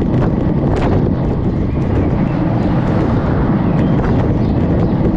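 Wind buffeting the action camera's microphone on a moving road bike: a steady low rumble with small clicks scattered through it.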